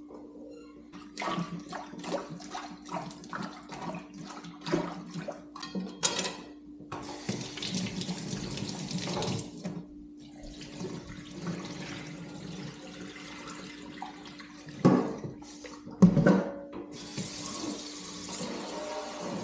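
Water splashing and running: a string of quick splashes, then a steady rush of water. Two loud knocks come about a second apart, after which the rush of water starts again. A steady hum runs underneath throughout.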